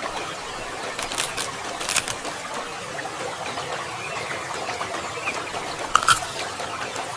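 Eating sounds: chewing of salmon with a few sharp crackly clicks over a steady hiss.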